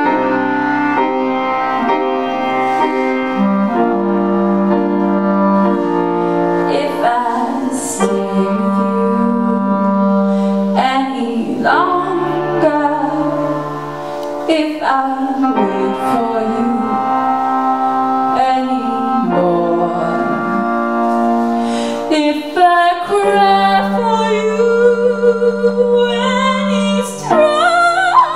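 Clarinet playing a slow solo of long held and bending notes over piano accompaniment in a jazz-blues song, with a woman's voice coming in singing near the end.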